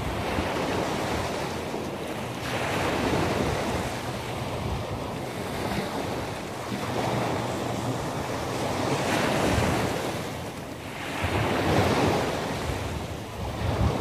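Sea waves breaking and washing onto the shore at night, the rush of surf swelling and easing every few seconds.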